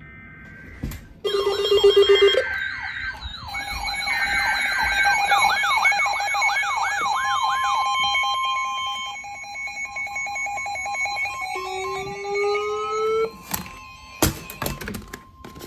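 Overlapping electronic alert tones: a fast, repeating warble over several steady tones for several seconds, then steady tones with a short rising tone, ending in a few sharp clicks. These are the sort of attention tones that precede an emergency alert broadcast.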